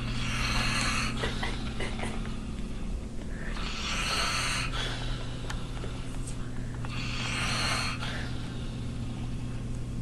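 A man snoring in his sleep: three breathy snores, each about a second long, coming roughly every three and a half seconds, over a steady low hum.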